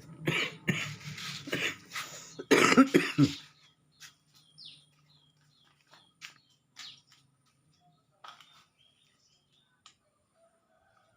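A person coughs hard several times in a row over about three seconds, the owner's cough that sends the pigeons flying. A few short faint sounds follow, bird chirps among them.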